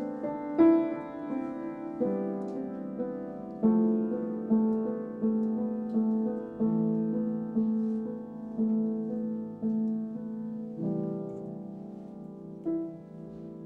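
Upright piano played slowly and softly, single notes and chords struck about once a second and left to ring, growing quieter toward the end.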